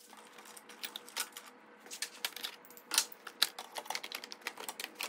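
Irregular sharp clicks and light clatter as a plastic lawn-tractor engine cover is worked loose by hand, the loudest click about three seconds in.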